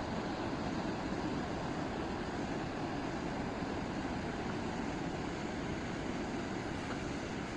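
Steady, even outdoor rushing noise with no distinct events, the kind made by wind or running water.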